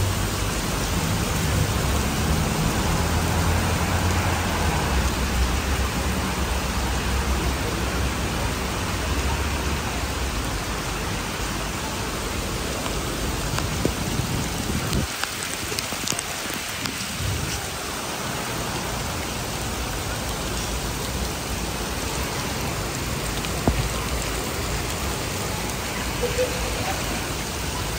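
Heavy rain pouring onto city pavement, a steady hiss of water, with a low rumble underneath that is strongest in about the first ten seconds.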